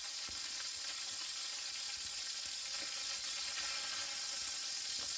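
Chicken drumsticks frying in hot oil in a cast-iron tagine, a steady sizzle as they brown.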